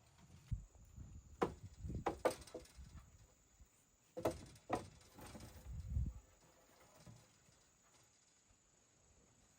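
Several sharp wooden knocks and low thuds in the first six seconds: cut poles or tree trunks being put down and handled.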